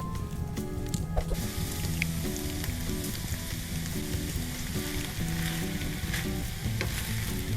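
Food sizzling as it fries in vegetable oil in a pan, setting in about a second in, over soft background music.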